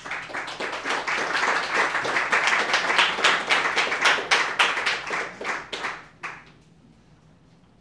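Audience applauding for about six seconds, then dying away.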